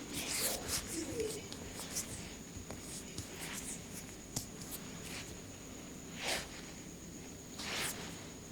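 Hands rubbing and stroking over skin during a massage: soft swishing strokes a few seconds apart, with a few faint light taps.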